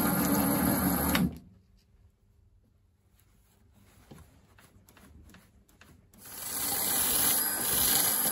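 Mini lathe turning an aluminium handle while a knurling tool presses a pattern into it; the sound cuts off suddenly about a second in. A quiet stretch with a few faint clicks follows, then the lathe runs again from about six seconds in.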